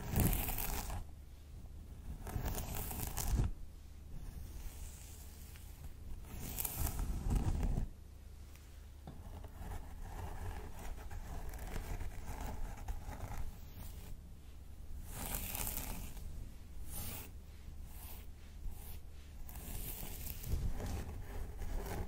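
Fingers and fingernails scratching, rubbing and parting long hair at the scalp: an irregular string of crackly rustling strokes. The loudest strokes come just after the start, about three seconds in and about seven seconds in.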